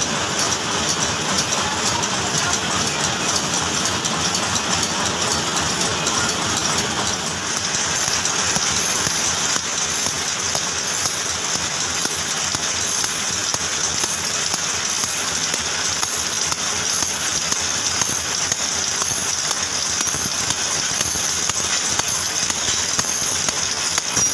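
Belt-driven screw-making machine running steadily, a dense fast metallic clatter with small screws rattling in its hopper drum. The high rattle grows stronger about a third of the way in.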